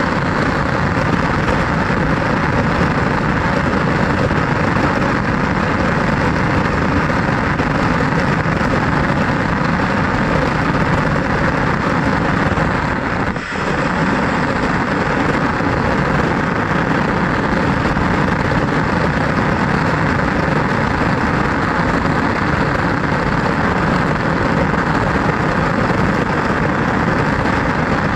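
RC car driving: a steady, loud mechanical noise with no clear pitch, dropping briefly about halfway through.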